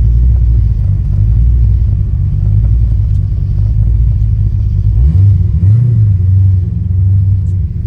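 Fox-body Ford Mustang engine running with a low rumble, given a brief rev about five seconds in, then settling back to a slightly higher idle.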